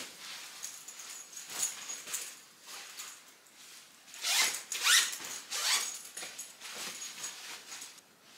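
Zipper of a fabric packing cube being pulled in a few quick runs, loudest about halfway through, with soft rustling of clothes being handled.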